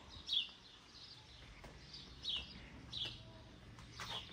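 A bird chirping: short, high, falling notes repeated about once or twice a second.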